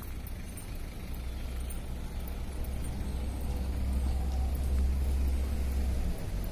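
Street traffic on a city road. A passing motor vehicle's low engine rumble grows louder through the middle and drops off about six seconds in.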